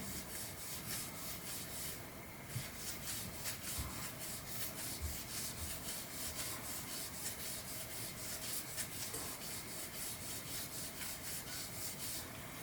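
Quick back-and-forth hand rubbing strokes on a metal part, several a second, with a short pause about two seconds in.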